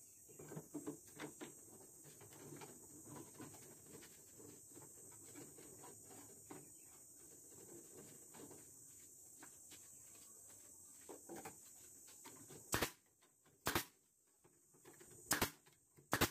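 Light knocks and rattles of wooden boards being set into corner clamps, then four sharp shots from a pneumatic nail gun in the last few seconds, the middle gap longer than the others.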